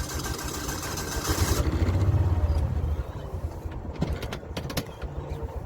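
Wind buffeting the microphone in gusts: a flickering low rumble with a broad hiss, strongest about two seconds in. A few light clicks follow about four seconds in.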